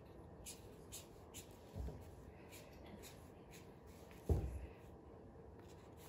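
Felt-tip marker drawing on folded paper, faint short scratchy strokes as whisker lines are drawn. A louder low thump comes about four seconds in.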